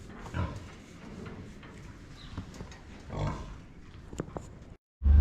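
Pigs grunting a few times at a fairly low level, with a couple of light clicks near the end.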